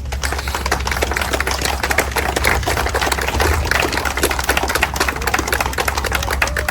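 A crowd applauding: dense, irregular clapping throughout, over a steady low rumble.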